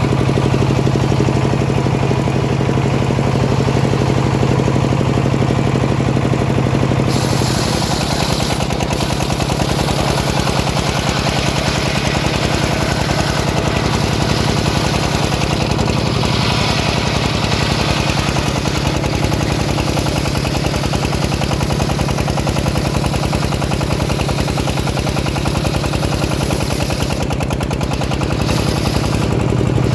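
Engine-driven home-built sawmill running with a fast, even engine beat. About seven seconds in the engine note drops and a high hiss of the blade cutting through a teak log joins it, easing off a few seconds before the end as the cut finishes.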